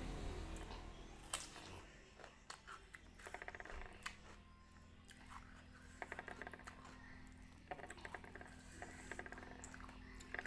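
Close-miked chewing and lip-smacking of someone eating, in short bursts, with a sharp click about a second in.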